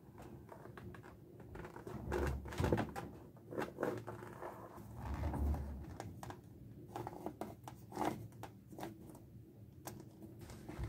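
Leather pieces being handled and bent on a wooden workbench: rustling and scraping with scattered clicks, and a couple of dull thumps about two and five seconds in.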